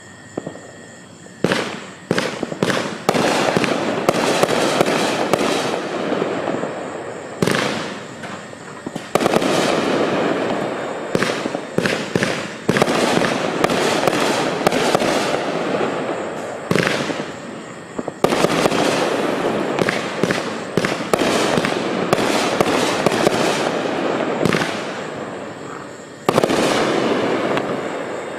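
A 24-shot, 500 g consumer fireworks cake (Magnus WD-44) firing shot after shot: repeated sharp bangs over a continuous rush of noise. It dies away near the end as the last shots go off.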